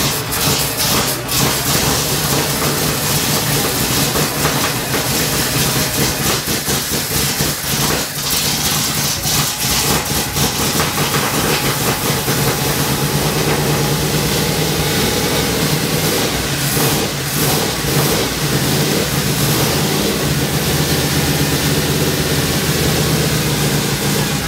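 Ford FE V8 engine of a 1973 Ford F100 running at idle with a steady, even sound, while the carburetor is being adjusted.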